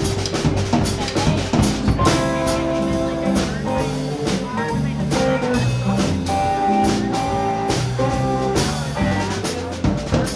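Small blues band playing live: a drum kit keeping a steady beat under bass, keys and guitar, with held chords coming in about two seconds in.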